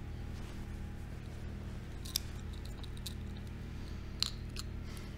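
Small metallic clicks from a pocket watch and its chain being handled in the fingers: a few sharp clicks about two and three seconds in, and a louder one about four seconds in, over a steady low hum.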